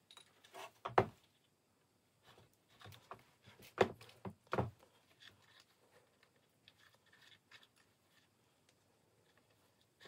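Handling sounds from hand-stitching a birch bark knife sheath held in a bench vise: a few short knocks and rubs as the needles and thread are worked through, the loudest about a second in and again around four seconds, then faint light ticks.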